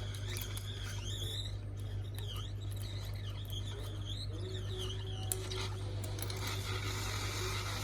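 Steady low electrical hum with a faint wavering high whine over it, and one light sharp tap about five seconds in.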